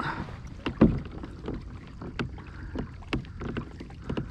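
Irregular light knocks and clicks of gear and hull on a Hobie Compass plastic fishing kayak on the water, with one louder knock just under a second in.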